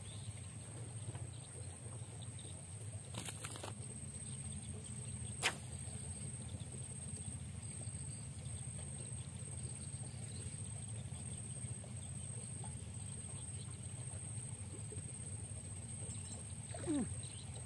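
Quiet outdoor ambience: a low steady rumble with a thin, steady high-pitched whine over it, broken by two sharp clicks a few seconds in.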